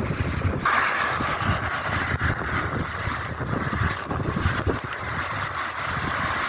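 Mountain stream rushing steadily over rocks, coming in suddenly about half a second in, with wind buffeting the microphone in low gusts.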